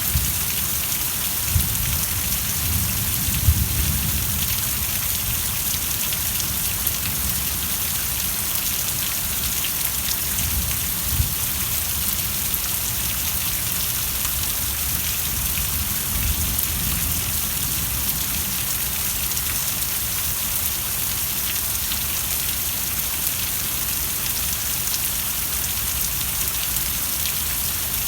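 Steady rain falling, an even hiss with scattered louder drops ticking through it and a low rumble underneath, strongest in the first few seconds.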